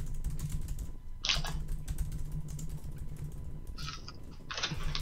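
Typing on a computer keyboard: quick runs of key clicks. There are two short hissing sounds, one about a second in and one near the end, over a steady low hum.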